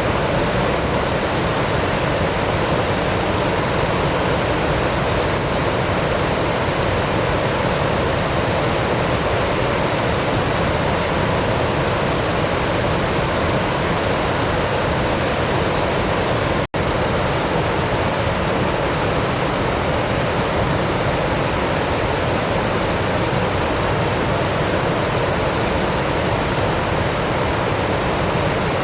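Steady rushing of river water, a loud even roar with no birdsong standing out. It breaks off for a split second about halfway, where the recording cuts, and carries on unchanged.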